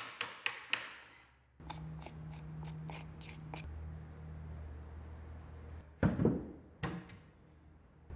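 A small hammer tapping on wood in a jig, about four taps a second, stopping about a second in. After that a low steady hum with a few light ticks, and two louder knocks about six and seven seconds in.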